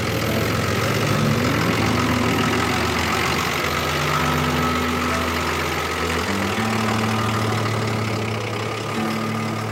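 Off-road vehicle's engine running steadily.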